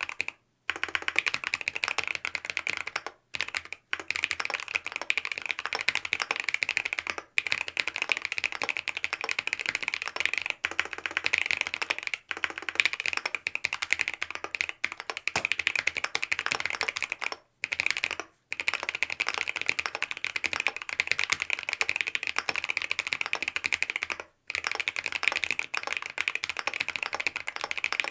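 Fast continuous typing on a Mont Cervin custom mechanical keyboard with BSUN OG Holy Panda tactile switches, the stems lubed with Tribosys 3204, on a polycarbonate plate with Poron and EPDM foam dampening, under Key Kobo WOB keycaps. Dense key clacks, broken by several short pauses.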